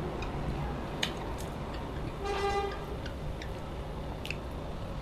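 Quiet eating by hand: faint mouth clicks and chewing as rice and stew are eaten with the fingers. About two seconds in, a brief horn-like toot sounds for roughly half a second.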